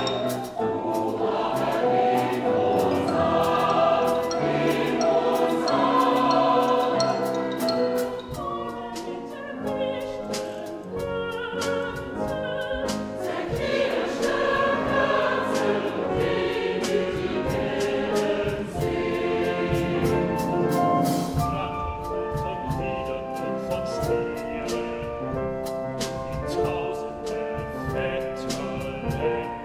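A mixed choir singing with an instrumental ensemble, sharp percussion strokes recurring throughout.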